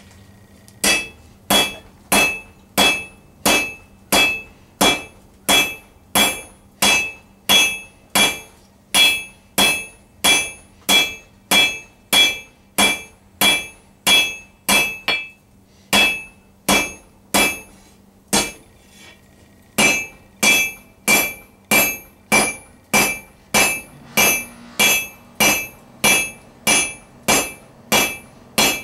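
Hand hammer forging a red-hot 1 cm round steel bar on an anvil, working one half of the split bar. Steady blows at about one and a half a second, each with a high metallic ring, with two short breaks a little past halfway.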